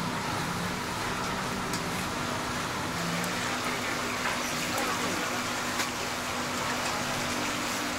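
Chive cakes deep-frying in hot oil: a steady sizzle, with a faint steady hum underneath.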